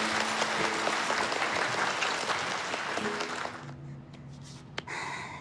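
Audience applauding over background music, cutting off about three and a half seconds in; then a quiet room with a single sharp click near the end.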